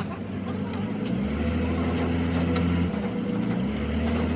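Truck engine idling: a low steady hum that steps louder about a second in, eases near three seconds, and rises again shortly after.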